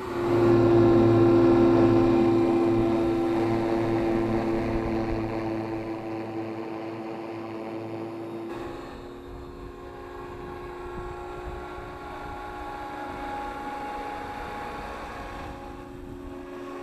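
Align T-Rex 500E electric RC helicopter flying: a steady whine from its electric motor and rotor blades. It is loudest as the helicopter passes close about half a second in, then fades as it flies away.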